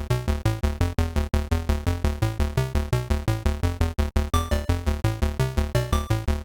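Background electronic music with synthesizer and a fast, steady beat over deep bass notes.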